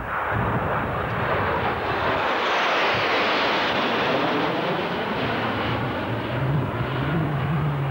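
Jet noise from a formation of four F-111 jets flying past overhead on their twin turbofan engines. The sound builds quickly, is loudest and brightest about three seconds in, then settles to a lower rumble as the formation moves away.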